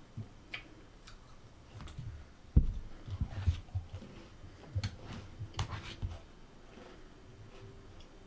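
Soft clicks and low knocks of food and things being handled at a table, with one sharper knock about two and a half seconds in and a cluster of light knocks after it.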